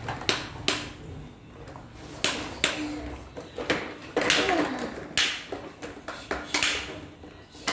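Plastic toy excavators being handled, knocking against each other and the tile floor: a series of sharp, uneven clacks, about a dozen in all.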